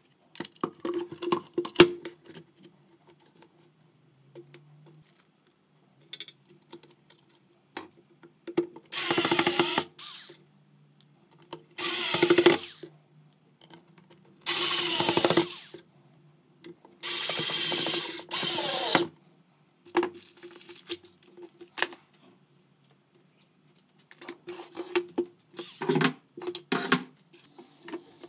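Small cordless electric screwdriver driving screws into a metal hinge on plywood, in four short runs of one to two seconds each. Clicks and knocks of handling the screws, hinge and board come between and around the runs.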